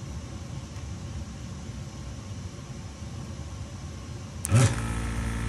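Electric desoldering gun's vacuum pump triggered about four and a half seconds in: a sharp click, then a buzzing hum for about a second as it draws molten solder off a joint on the turntable's strobe board.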